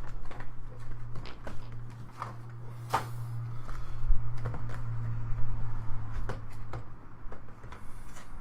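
Irregular clicks, taps and rustles of cardboard card packaging being handled and opened, with one sharper click about three seconds in. A low steady hum runs underneath and stops about seven seconds in.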